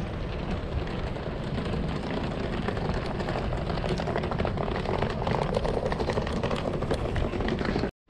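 Outdoor railway-station platform ambience dominated by wind buffeting the camera microphone, with a faint steady low hum underneath; the sound drops out completely for a moment near the end.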